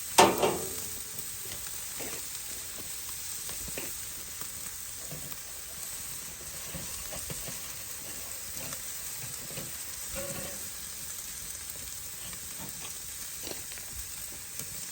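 Marinated steaks sizzling on a grill over open flames: a steady hiss with faint scattered crackles.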